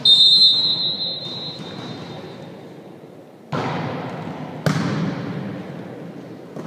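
Referee's whistle blows once, a steady shrill tone lasting about a second and a half, signalling the serve in a volleyball match. A few seconds later the volleyball is struck twice, about a second apart, each hit echoing in the sports hall.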